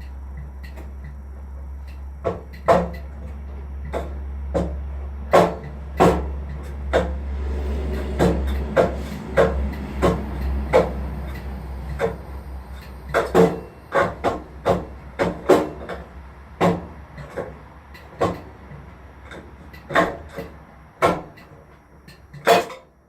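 Irregular sharp knocks and clunks of objects being handled or struck in a workshop, about one or two a second, over a low steady hum that fades out about two-thirds of the way through.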